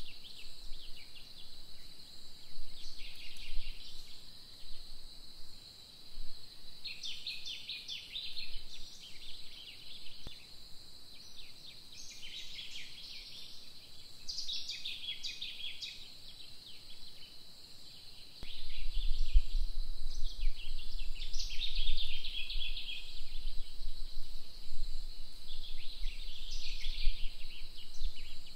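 Natural outdoor ambience: a steady high-pitched insect drone, with bursts of chirping calls every few seconds. A low rumble joins about two-thirds of the way in.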